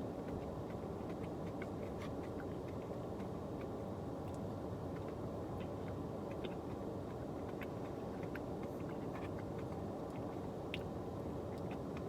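Steady hum of a car's engine and air-conditioning fan running inside the cabin, with scattered faint clicks.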